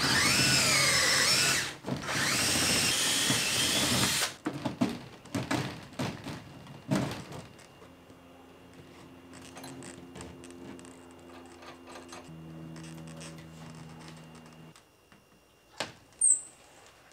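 Cordless drill boring upward through vinyl soffit into a wooden 4x4, its motor pitch rising and falling under load, pausing briefly and stopping about four seconds in. Then scattered light clicks and knocks as the hardware is handled and fitted into the hole, with one sharp click near the end.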